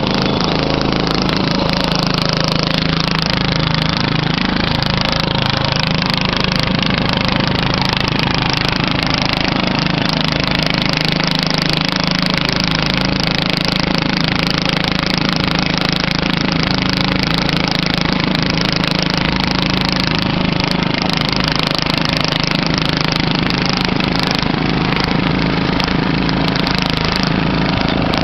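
Riding lawn mower engines running loud and steady.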